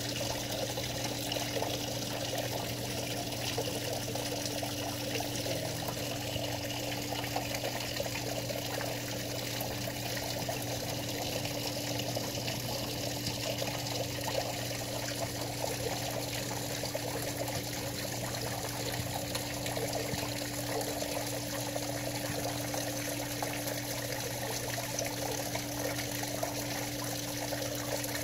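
Steady trickling, water-like noise with a low, constant hum underneath, unchanging throughout.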